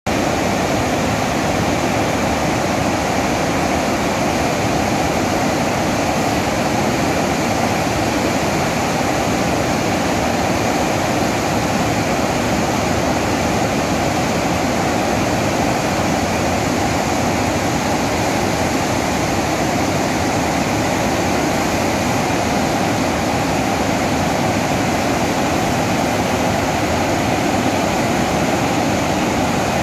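Water discharging through a dam's open spillway gates and crashing into the river below: a steady, unbroken rush of water.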